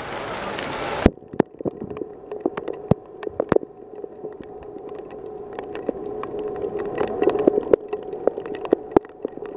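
Heavy rain hissing for about the first second, then cut off abruptly; after that, scattered sharp taps, from rain or drips, over a steady low hum.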